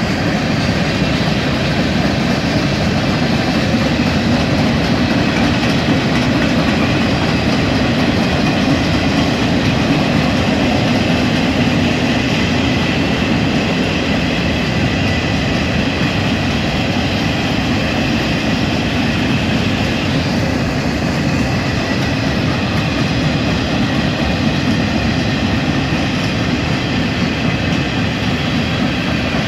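Freight train cars rolling steadily past close by: a continuous rumble and clatter of steel wheels on the rails.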